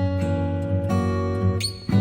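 Background music: acoustic guitar playing, plucked and strummed, with a brief high rising squeak near the end.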